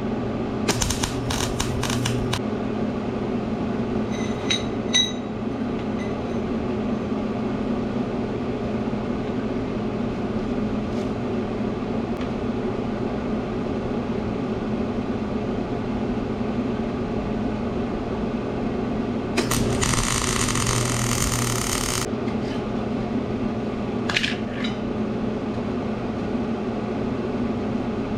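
Steady electrical hum of welding equipment in a small shop, with a few clicks and knocks near the start. About twenty seconds in there is a crackling, hissing burst of about two and a half seconds: a short arc weld being laid on the steel drain-grate frame.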